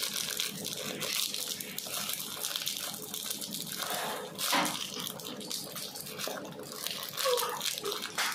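Brown sugar pouring from a plastic bag onto grated cassava in a plastic bowl: a steady granular hiss with fine crackling from the sugar and the bag.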